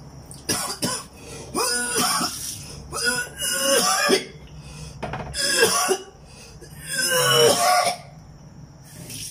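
A man gagging and retching, about four rough heaves with coughing, a second or so apart: nausea from a food he forced himself to eat.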